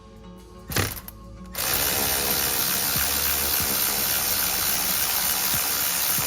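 Ratchet wrench turning out a 10 mm bolt that holds a steering-wheel airbag: a brief burst about a second in, then fast, steady, continuous ratcheting for about five seconds.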